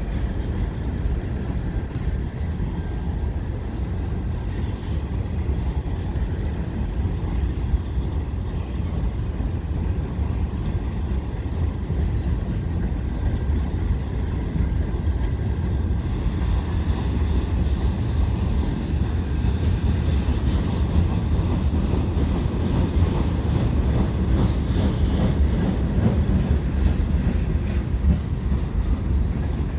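Canadian National mixed freight train's cars rolling across a railway bridge: a steady low rumble.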